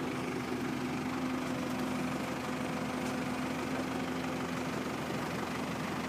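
Braud 9090X grape harvester's engine and machinery running steadily, with a constant hum.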